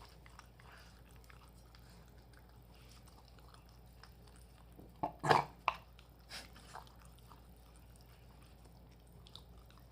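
Shiba Inu eating boiled minced venison on dry dog food, with faint chewing. About halfway there is a brief louder cluster of sharp clicks and knocks, followed by a few smaller ones.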